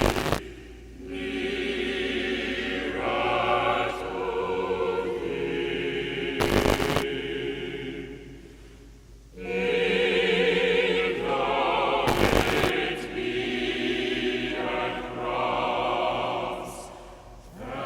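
Choral music: a choir singing long, wavering held notes in slow phrases, with a short noisy burst about every six seconds.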